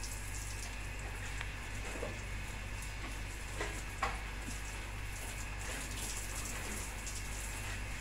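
Water spraying from a garden hose onto bare brick walls: a steady hiss and patter of spray over a steady low hum, with a sharp click about four seconds in.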